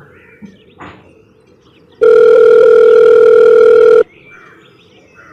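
A mobile phone's electronic call tone: one loud, steady beep lasting about two seconds. It starts about two seconds in and cuts off sharply.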